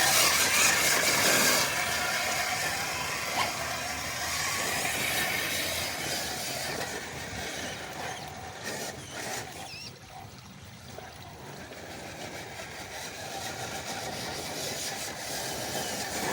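Electric RC rock crawler's motor and gears whining faintly as it crawls over rocks, over a steady hiss; the sound is loudest at first and fades away for a while about ten seconds in.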